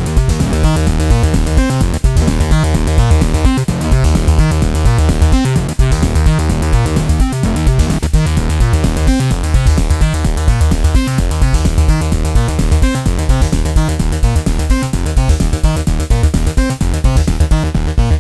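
Electronic jam: an Arturia Drumbrute Impact analog drum machine plays a steady, busy beat under notes from an Arturia Minibrute 2s analog synthesizer.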